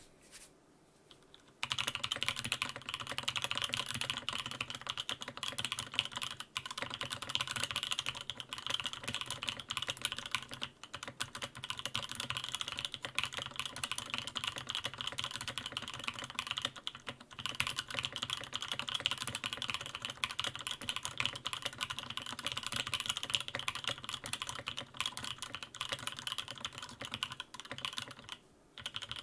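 Continuous typing on a Sam S80 top-mount mechanical keyboard fitted with one layer of shelf liner: a steady stream of key clacks starting almost two seconds in, with a brief pause near the end. The owner finds the sound not as bassy as the board without its bottom cover.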